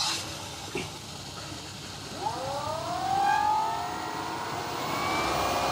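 BWD5-40 stainless steel variable-speed booster pump speeding up: about two seconds in, a rising whine that levels off into a steady whine, as the pump ramps up to hold 5 bar at a single-shower flow. Under it, the rush of water through the pipework begins suddenly at the start.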